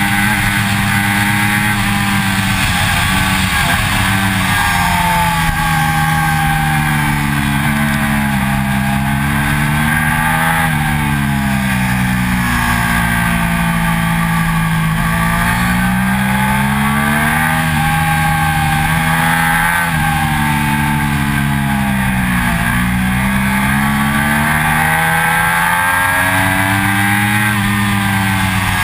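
2006 Triumph Daytona 675's inline three-cylinder engine at track speed, revs climbing hard and then dropping every few seconds as the bike accelerates and brakes through the corners. A steady rush of wind and road noise runs under it.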